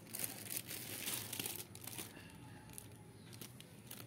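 Crinkly rustling of hands rummaging for the next hair rubber bands. It is strongest over the first two seconds, then a few fainter rustles follow.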